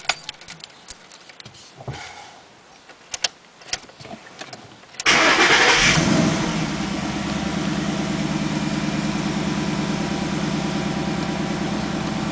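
A few light clicks, then about five seconds in the Ford Mustang GT's 5.0-litre V8 starts, flares briefly, and settles into a steady idle, heard from inside the cabin. This is the first start after an oil change, and the idle has no knocking noise: the lifters and cams are getting oil.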